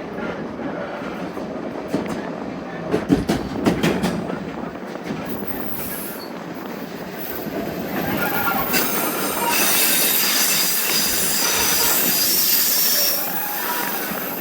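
White Pass & Yukon Route narrow-gauge passenger train running along the track. There are sharp clacks of the wheels over the rail joints a few seconds in, then a high wheel squeal from a little past halfway that grows louder and holds for several seconds.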